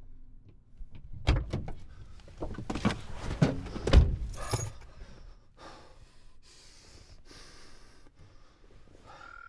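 Someone settling into a car: a run of clicks and knocks with keys jangling, and the car door shutting with a thud about four seconds in. Softer rustling follows.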